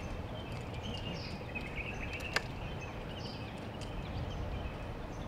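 Birds chirping again and again over a steady outdoor background, with one sharp click about two and a half seconds in as the break-action shotgun is snapped shut.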